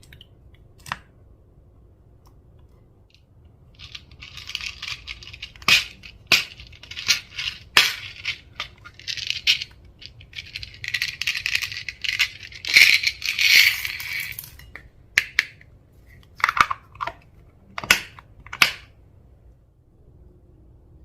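Close-up crackling and crunching from slime-mixing materials being handled, with sharp clicks and taps. It comes in bursts from about four seconds in until about fifteen, followed by a few separate clicks.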